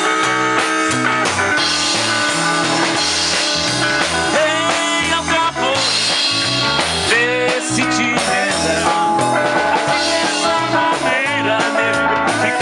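Rock band playing, with electric bass, drums and guitar and a singing voice over them.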